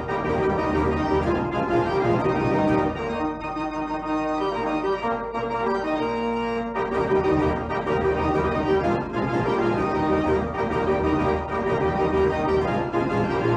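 Background instrumental music with held keyboard chords over a bass line. The bass drops out for a few seconds in the middle, then comes back.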